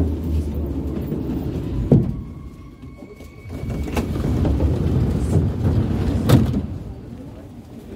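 Metro train running slowly into a station and stopping with a clunk about two seconds in. About four seconds in, its sliding doors open with a knock, with another knock near six seconds as passengers come to the door.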